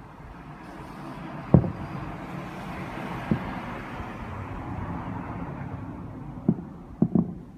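Fireworks bursting: five sharp low booms, two of them close together near the end, over a rushing noise that swells and then fades.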